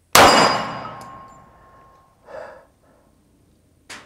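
A single .45 ACP pistol shot from a Springfield Armory Champion Operator 1911, very loud and sudden, ringing away over about a second and a half. About two seconds later comes a short breath.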